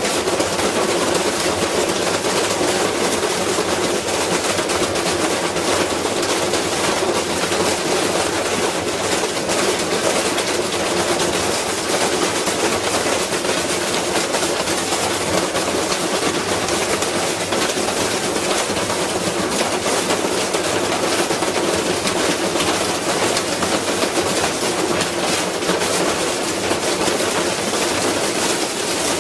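Washing machine spinning with a heavy iron weight inside: the badly off-balance drum bangs and rattles in a rapid, unbroken clatter as the machine shakes itself apart.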